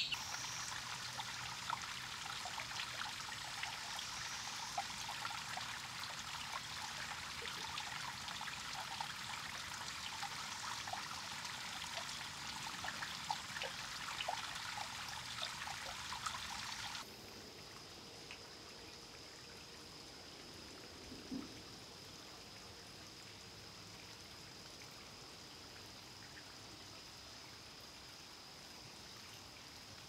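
Dense chorus of periodical cicadas: a steady hiss full of fine clicks. It cuts off abruptly about seventeen seconds in, leaving a quieter background with a faint, steady high-pitched tone.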